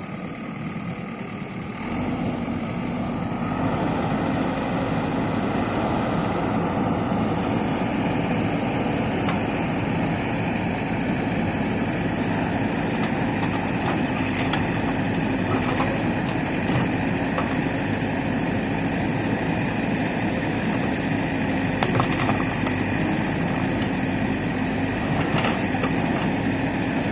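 Diesel engine of a JCB backhoe loader running steadily, growing louder about two seconds in, with a few short knocks.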